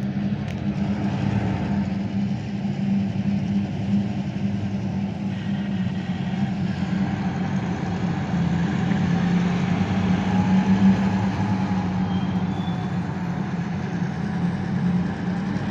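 Diesel locomotive engines running steadily close by, a strong, even drone from the units passing the trackside.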